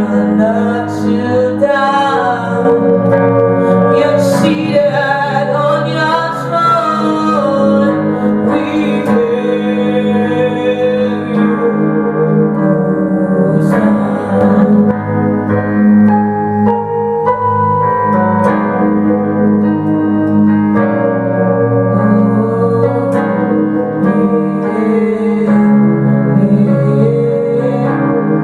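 Worship music: sustained keyboard chords with a singing voice drawing out long, wavering notes, without clear words.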